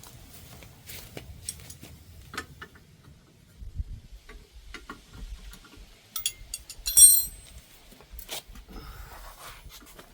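Hand tools and metal suspension parts clinking and knocking during strut work. One loud metallic clank about seven seconds in rings on briefly.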